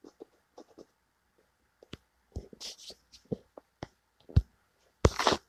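Irregular soft clicks, taps and short rustles close to the phone's microphone, with a louder rustle about five seconds in.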